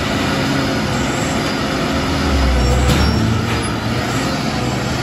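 Loaded Hino coal dump truck's diesel engine working hard as the stuck truck tries to drive out of soft dirt, its wheels churning up dust. The engine note is steady and swells about two seconds in.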